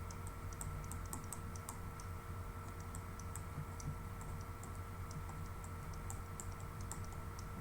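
Faint, irregular light clicks, several a second, like keys or a stylus tapping, over a steady low electrical hum.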